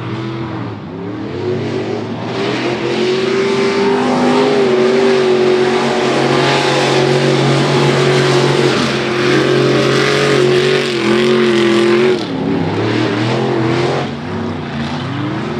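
Mud-racing vehicles' engines running hard at high revs under load through the mud, the pitch holding high with slight wavers, then easing off about twelve seconds in.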